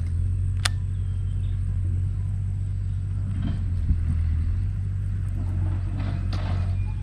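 Steady low rumble throughout, with a single sharp click less than a second in and a few faint brief rustles.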